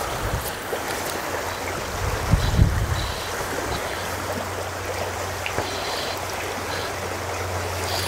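Steady rush of river water flowing over a riffle, with a brief low rumble about two seconds in.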